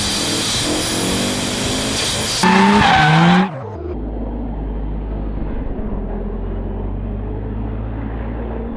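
A car driven hard, with loud engine and tyre noise; its engine note climbs in pitch near the third second and then cuts off suddenly, leaving a steady low drone.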